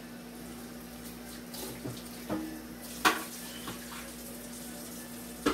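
Kitchen tap running into a sink as dishes are washed, with a few clinks of dishes, the sharpest about three seconds in.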